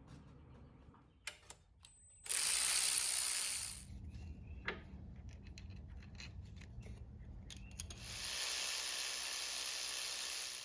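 Workshop handling noises: scattered clicks and rubbing, with two longer bursts of loud hiss, the first about two seconds in and the second near the end.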